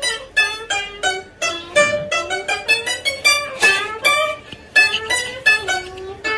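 A round-bodied Chinese plucked lute playing a melody in single plucked notes, about three or four a second, some of them sliding in pitch as they ring.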